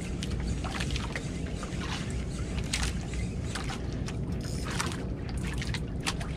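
Water lapping and slapping irregularly against the hull of a small outrigger fishing boat, over a steady low rumble.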